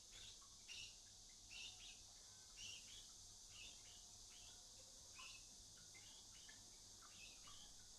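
Near silence: room tone with faint, short high chirps or ticks roughly once a second.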